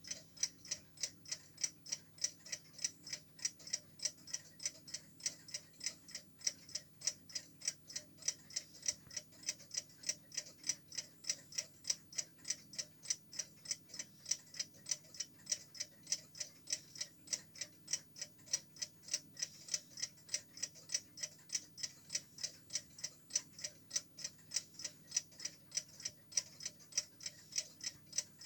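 Sevani mechanical alarm clock ticking: a fast, perfectly even train of sharp ticks from its clockwork movement. The steady, regular beat is the sign of a movement in good order, a rhythm the owner holds up as a reference for a healthy clock.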